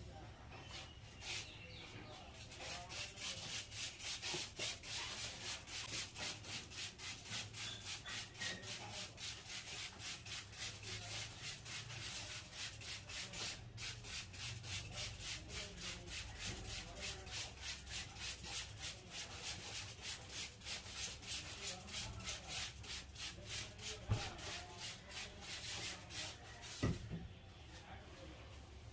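A barber's hands rub briskly over a customer's hair and scalp during a head massage. The scratchy strokes come in a fast, even rhythm, several a second, and stop near the end, with a couple of sharp clicks late on.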